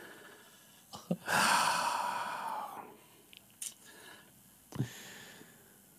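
A man's long breathy sigh, a little over a second in, lasting about a second and a half and fading away, with a few faint clicks around it.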